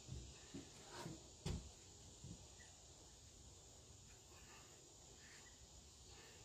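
Near silence: a faint steady outdoor hiss, with a few soft low thumps in the first two seconds and a few faint short chirps later.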